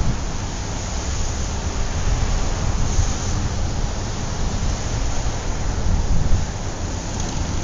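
Wind buffeting a handheld camera's microphone: a steady rushing hiss with uneven low gusts.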